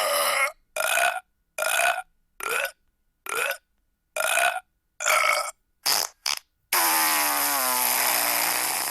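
A run of recorded burp sound effects, about eight short burps each under a second with brief gaps between them. Near the end comes one long drawn-out sound of about two and a half seconds with a wavering, falling pitch.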